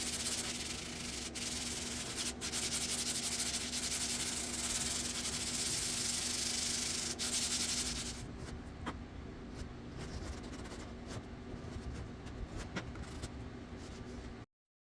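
Sanding body filler on a car's quarter panel: a steady, scratchy sanding hiss. It drops to a quieter rubbing with a few scattered clicks about eight seconds in, then cuts off abruptly just before the end.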